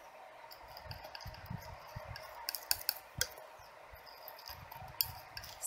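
Metal palette knife mixing oil paint on a glass palette: faint scraping with light clicks and taps as the blade meets the glass, a run of sharper clicks near the middle.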